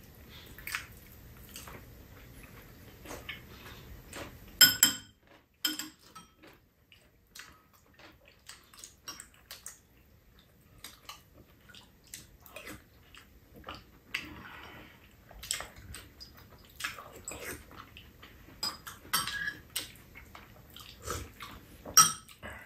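Spoons and chopsticks clinking and tapping against ceramic bowls and a metal tray table during a meal, in scattered, irregular light clicks, with a few louder clinks about five seconds in and near the end.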